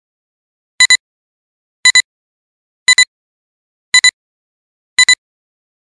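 Countdown-leader beeps: a short double electronic beep once a second, five times, with silence between.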